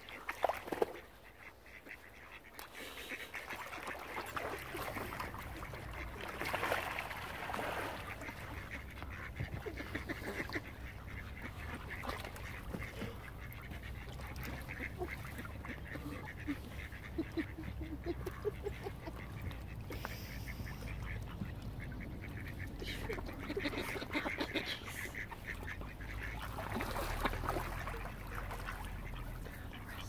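Mallard ducks quacking in irregular bouts, with a quick run of repeated quacks about halfway through, over a low steady rumble.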